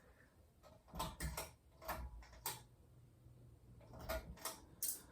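A 52-inch Hunter ceiling fan being switched to medium speed: about seven irregular mechanical clicks and knocks. A faint low hum starts about two seconds in.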